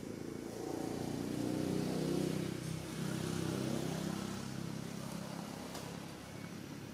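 A motor vehicle's engine passing, a steady low hum that grows louder about a second in and fades away over the last couple of seconds.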